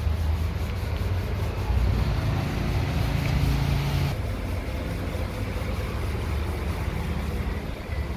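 A motor vehicle running with a steady low rumble.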